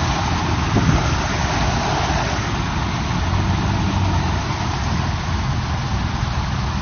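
A vehicle's engine running steadily at low speed under a steady rushing noise as the vehicle creeps slowly into floodwater.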